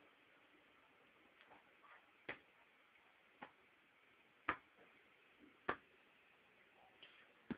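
A slow series of sharp taps, roughly one a second, the loudest four in the middle, over a near-silent hall; a few fainter taps come before and after them.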